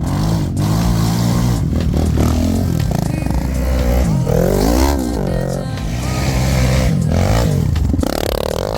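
Quad bike (ATV) engine running under load, its pitch rising and falling again and again as the throttle is worked.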